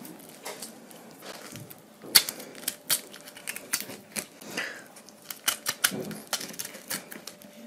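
Knife cutting into a pineapple: a run of irregular crisp clicks and crackles, the sharpest about two seconds in.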